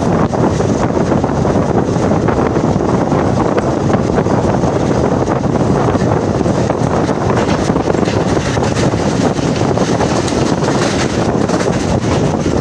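Wind rushing over the microphone together with the steady running noise of a passenger train at speed, heard from an open coach window.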